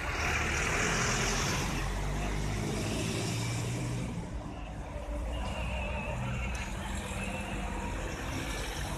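Street traffic: motor vehicle engines running and passing, with a loud hiss in the first couple of seconds.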